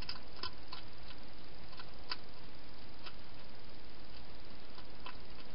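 Hedgehog chewing food: irregular short sharp clicks, several close together in the first second, then sparser, over a steady hiss.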